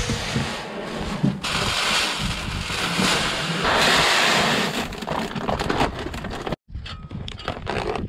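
Treated seed corn pouring from a paper bag into a planter's plastic seed box: a steady rushing rattle of kernels, loudest about four seconds in, with the paper sack crinkling.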